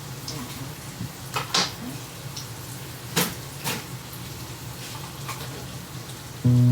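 Kitchen clatter: a few sharp knocks and clinks of pots and dishes being handled, over a low steady hum. Three of them come about a second and a half, three seconds and three and a half seconds in.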